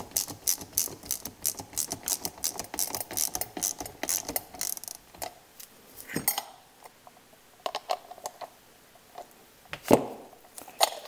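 Hand ratchet clicking in quick, uneven runs as nuts are tightened, stopping about six seconds in. A few lighter clicks follow, and a single sharp knock near the end is the loudest sound.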